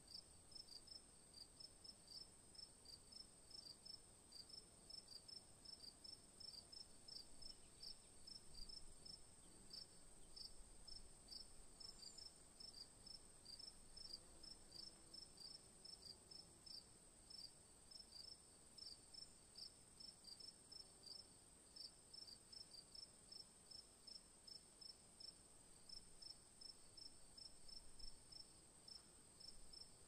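Faint, regular insect chirping: short high chirps at about three a second, over a steady thin high whine.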